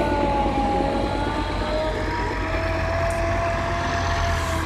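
Engines of a slowly passing fire engine and tractor rumbling, with a long, slowly wavering siren tone sounding over them.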